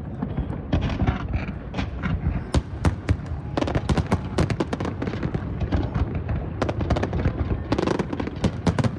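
Large fireworks display: a dense, unbroken series of bangs, booms and sharp crackles, several a second.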